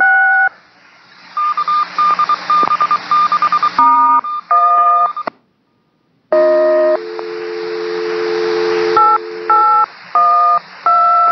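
Touch-tone (DTMF) digits sent over a railroad two-way radio channel with radio hiss beneath: a single digit, then a rapid string of short tones and a few more digits, a brief dropout, a steady lower tone for about two seconds, and another run of digits near the end.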